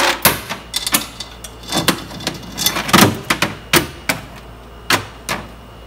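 A heavy-duty bicycle roller chain clinks and rattles in irregular clicks as it is handled and drawn over a motor sprocket, loudest about three seconds in.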